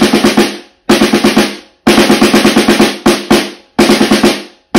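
Snare drum with the snares engaged, struck with wooden sticks in a basic beginner rhythm: short runs of quick strokes, each run ending on a stroke left to ring out.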